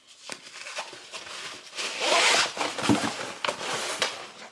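Rolled paper art prints being unrolled and spread open by hand: paper rustling and sliding, loudest about halfway through, with a few sharp crackles.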